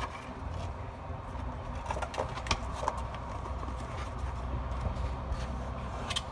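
Clear thin PET plastic lid being pressed down and snapped onto the rim of a bagasse (sugarcane-fibre) bowl, giving a few light plastic clicks and crackles, clustered about two to three seconds in and one sharper click near the end, over a steady low hum.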